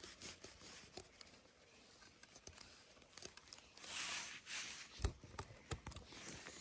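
Faint rustling and scattered small clicks and knocks of someone moving about close to the microphone, with a sharper knock about five seconds in and a few more clicks near the end as the camera is handled.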